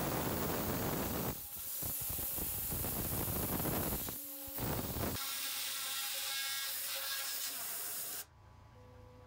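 CNC router spindle milling a cutout in a case lid, a loud steady hissing noise that dips briefly twice and then cuts off suddenly near the end, leaving a quiet low hum.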